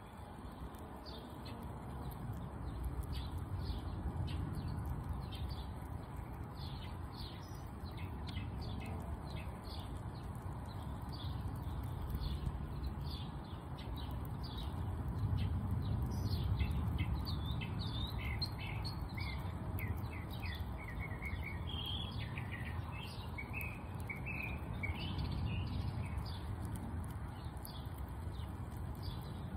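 Small songbirds chirping again and again, with a busier run of quick falling notes about halfway through, over a steady low background rumble.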